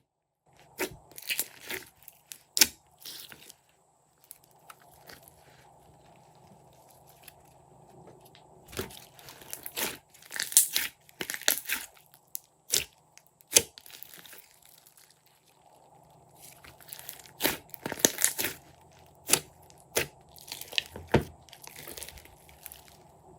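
Glossy slime being squished and stretched by hand, giving irregular sticky clicks, crackles and pops in clusters.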